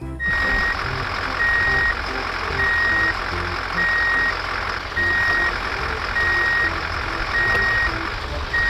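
A truck's reversing alarm beeping evenly, about one high beep every 1.2 seconds, over the steady noise of its engine running.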